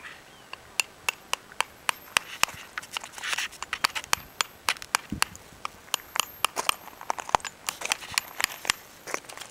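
Small rock hammer tapping on slabs of rock: sharp, irregular clicks a few times a second as the rock is split open in a search for trilobite fossils.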